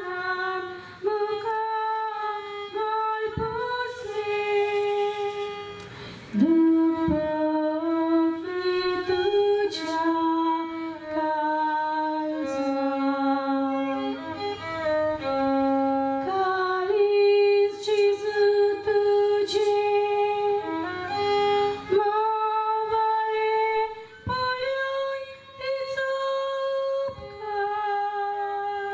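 A woman singing a slow devotional song through a microphone and loudspeakers, holding long notes that step from one to the next, with a violin accompanying her.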